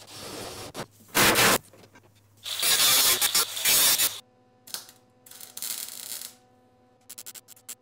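Rapid run of metalworking power tools on sheet steel. A cordless drill runs briefly, then an angle grinder cuts in loud bursts, and a MIG welder crackles in short runs, with quick tack-weld pulses near the end.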